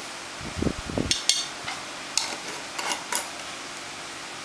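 Kitchenware being handled: a few short, sharp clinks of a metal spoon against a glass mixing bowl and containers, after a dull bump about half a second in.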